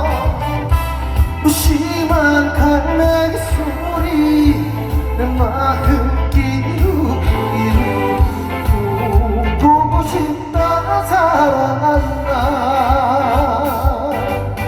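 Trot song performed live over a backing track: a steady pulsing bass beat under a pitched melody line with wide vibrato.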